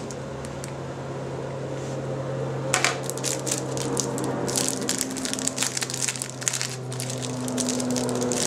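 Unboxing packaging being handled: irregular crinkling and rustling of cardboard and paper inserts as the box contents are pulled out, over a steady low hum.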